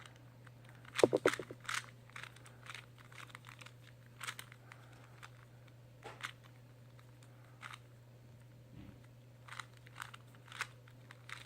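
Plastic clicking and clacking of a 2x2 Rubik's cube as its faces are turned to scramble it, in irregular bursts, the busiest about a second in. A faint steady low hum runs underneath.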